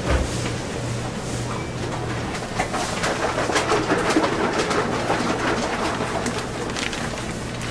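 Commercial kitchen background: a steady low hum with irregular light rustling and clattering, busiest about three to five seconds in, as a plastic bag of marinated chicken is handled over a stainless steel bowl.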